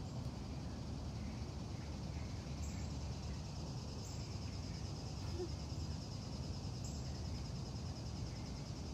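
Insects trilling in a steady, high, finely pulsing chorus over a steady low rumble.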